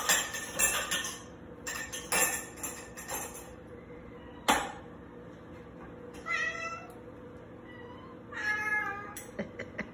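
Domestic cats waiting to be fed, meowing twice in the second half, each call lasting under a second. Before that, a dish clinks several times in quick succession, with one sharper knock about halfway through.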